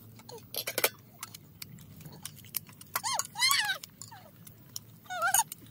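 Metal cutlery clinking against plates, a few sharp clicks in the first second. About three seconds in and again near the end come short, high-pitched, wavering cries, the one at about three seconds the loudest thing here.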